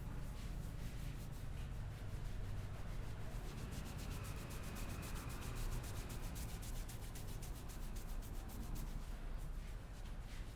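Barber's hands rubbing briskly through hair and over the scalp in a head massage: a fast, unbroken run of scratchy strokes.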